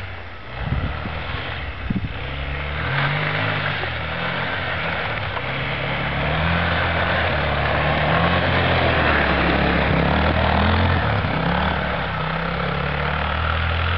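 Small quad bike's engine running and revving up and down as it is ridden through snow, getting louder about six seconds in.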